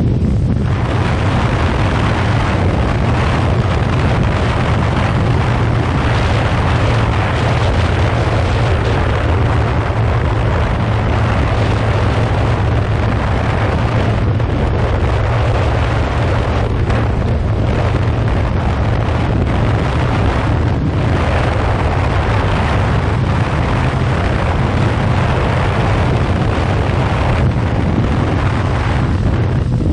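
Riding at a steady speed on a 2015 Yamaha FZ6R's parallel-twin engine. Heavy wind noise on the microphone covers a steady low engine drone, with no change in pace.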